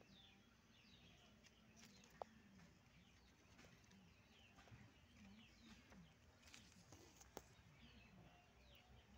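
Faint bird chirping, many short downward-slurred notes repeating, over a quiet outdoor background, with a couple of soft clicks.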